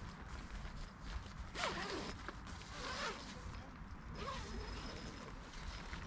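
A tent's door zipper being drawn open from inside in a few short pulls, with the tent's nylon fabric rustling as the flap is pushed aside.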